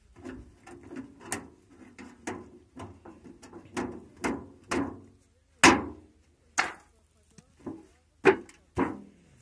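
Thin tin sheet of a cooking-oil can being bent and handled: a run of sharp metallic pops and clanks, with the loudest ones a little past halfway and near the end.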